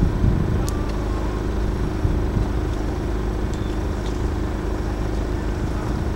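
Steady low rumble of outdoor background noise with a faint steady hum through it and a few faint clicks.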